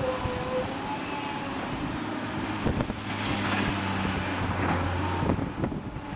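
Diesel engines of tracked excavators and a bulldozer working on rubble, a steady low drone with a few knocks, over wind on the microphone.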